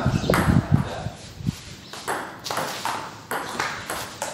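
A table tennis rally starting about halfway in: the ball clicking sharply off the paddles and the table, two or three hits a second. Men's voices and low thumps come in the first second.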